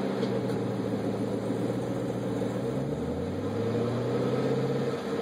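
2013 Chevrolet Camaro ZL1's supercharged 6.2-litre V8 running. It is given a light rev about three seconds in, the pitch rising and holding, then dropping back to idle near the end.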